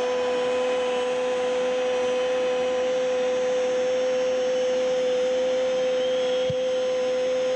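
A football commentator's single long held shout of "goal", sustained at one steady high pitch without a break, over steady crowd noise.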